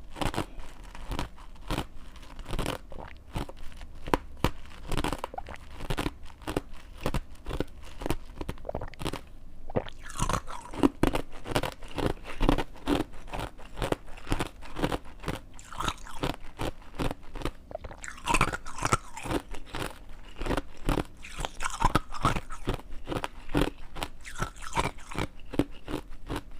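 Ice being bitten and chewed close to the microphone: a continuous run of sharp, irregular crunches.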